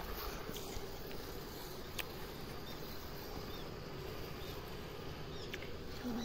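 Rural outdoor ambience: a steady low background with a few faint, short bird chirps and a single sharp click about two seconds in.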